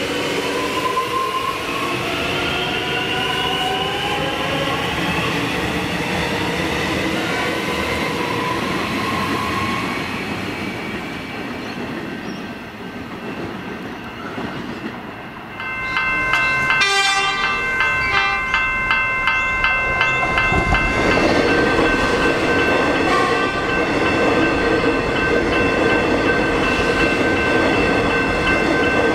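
X'trapolis electric trains. In the first few seconds one pulls away with its motor whine rising in pitch. After a cut, another runs past a level crossing, where steady high multi-tone warning sounds ring out over the rumble of its wheels.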